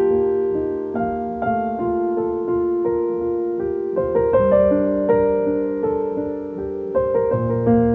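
Background piano music: soft, slow notes that linger and overlap.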